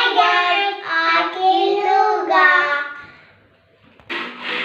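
Children singing a few held notes together for about three seconds. After a short pause, a sudden burst of loud, noisy sound comes in near the end.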